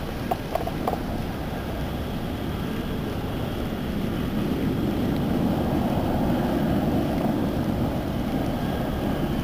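Steady wind rumbling on the microphone of a camera on an open bass boat, growing a little louder about halfway through, with a few faint clicks near the start.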